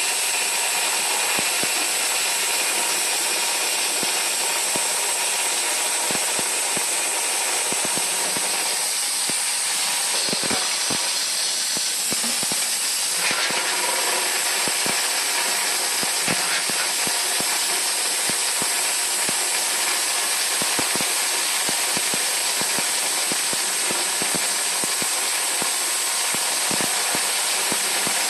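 Star SR20 sliding-head CNC lathe running as it turns a brass banjo fitting: a steady hiss with scattered light ticks.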